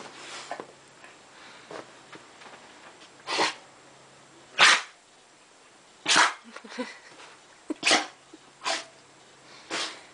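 A pet sneezing repeatedly: about six sharp sneezes, one every second or so, starting about three seconds in. It is a fit of sneezing that the owner wonders may come from allergies.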